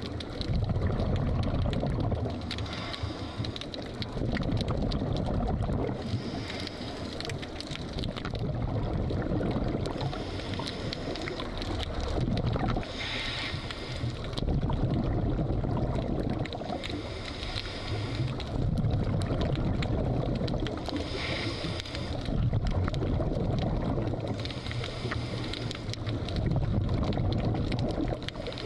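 Scuba diver breathing through a regulator: a short hissing inhale, then a longer gurgling burst of exhaled bubbles, repeating about every four seconds.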